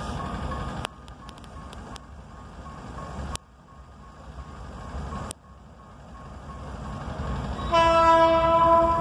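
Diesel locomotive horn sounding one loud chord near the end, over the low rumble of the approaching train. Underneath, a level-crossing warning signal beeps steadily, and there are a few sharp clicks early on.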